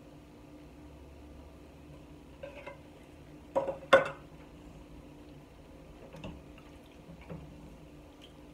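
A tin can and a wooden spoon knocking against a steel pot and counter as tomato sauce is emptied into a pot of vegetable soup and stirred: a few scattered clunks, the loudest pair about four seconds in.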